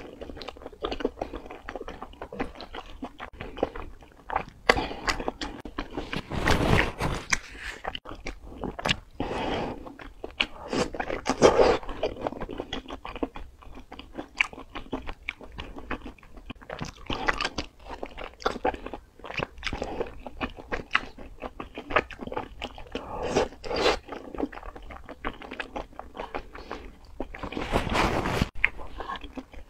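Close-miked chewing of wide potato-starch noodles in chili oil, with dense wet mouth clicks and smacks. A few louder slurping bursts come about a quarter, two-fifths and nearly all the way through.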